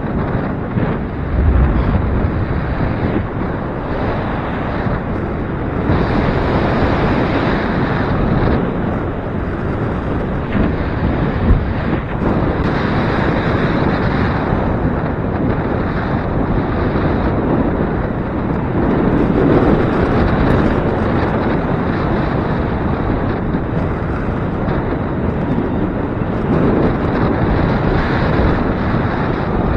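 Gusty wind blowing across the microphone: a loud, continuous rush that swells and eases every few seconds.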